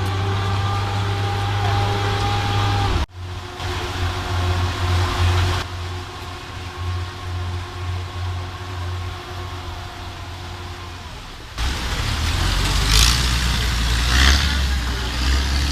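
A low engine rumble with faint steady tones above it, changing abruptly twice where clips are cut together.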